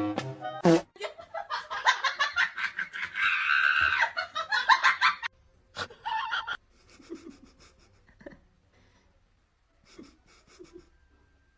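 Hearty laughter in quick pulses for about four seconds, then stopping, with a few short, faint sounds after it.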